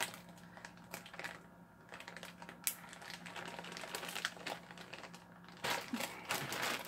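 A clear plastic zip-top bag full of clay packets crinkling and rustling as hands handle it, with scattered small clicks; the crinkling gets louder near the end.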